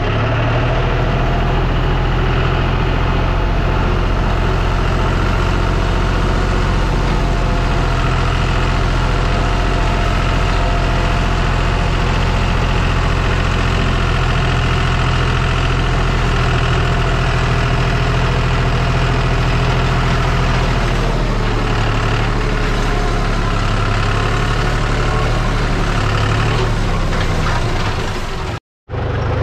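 Compact tractor's engine running steadily as the tractor drives along, its low note shifting slightly about two-thirds of the way through. The sound cuts out for a moment near the end.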